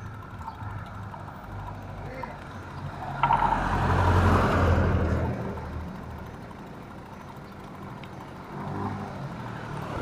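Street traffic: a motor vehicle with a low engine note passes close by, swelling about three seconds in, loudest around four to five seconds and then fading, over a steady hum of traffic. A smaller swell of traffic noise comes near the end.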